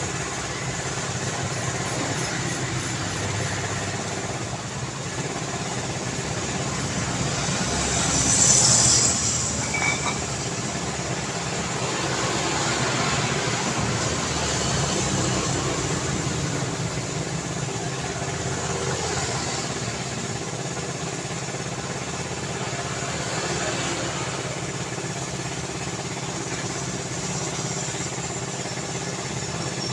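Steady road traffic: vehicle engines and tyres running past continuously. One vehicle passes louder and closer about eight seconds in.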